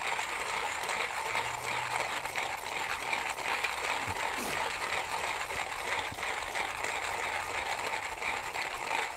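1Zpresso K-Plus manual hand grinder being cranked steadily, its burrs crunching through whole coffee beans in a continuous grinding rattle.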